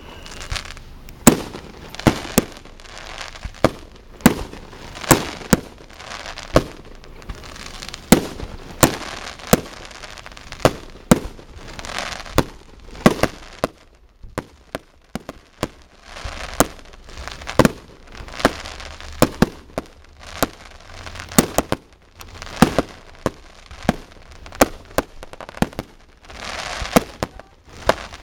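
Aerial fireworks display: shells bursting in rapid, irregular succession, sharp bangs about one or two a second with crackling between them. There is a brief lull partway through.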